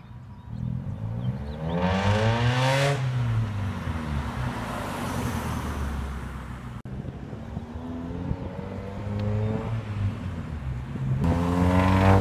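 Mazda MX-5 Miata's 1.8-litre four-cylinder engine revving up as the car drives by, its pitch rising about two seconds in, then again twice in the second half.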